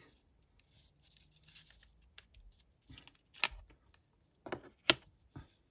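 Plastic casing of a Volvo smart key fob being handled: faint scraping as the front cover slides off, then a few sharp plastic clicks, the loudest about three and a half seconds in and again near five seconds.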